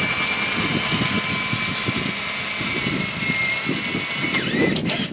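18-volt Milwaukee cordless drill motor whining at a steady pitch as it drives a winding crank, then the pitch dips and the motor stops about four and a half seconds in.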